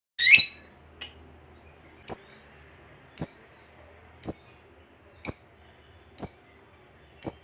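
Fischer's lovebird calling: a brief chattering call at the start, then a series of short, sharp, high-pitched chirps, about one a second.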